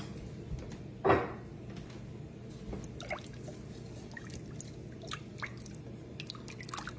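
Wooden spatula stirring soup broth in an enameled pot: small sloshes and drips of liquid, with one louder slosh about a second in, over a steady low hum.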